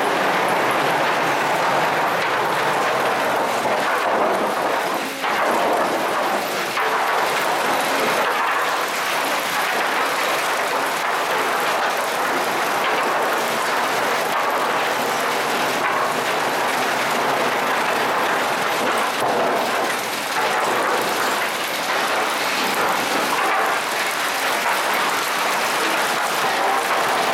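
Sawmill board-stacking machine running: chain conveyors carrying sawn boards give a steady loud mechanical clatter, with a few sharper knocks as boards shift.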